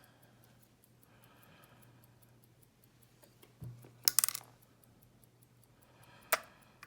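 Small metal lock parts clicking and tapping as a padlock is taken apart by hand: a soft thump, then a quick cluster of sharp clicks about four seconds in and one more click near the end. A faint, fast, even ticking runs underneath throughout.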